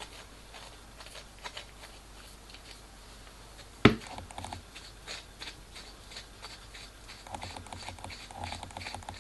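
Small metal handling noises as an 8 mm threaded rod is screwed by hand into an aluminium clamp dog: faint ticks and scrapes, with one sharp knock about four seconds in.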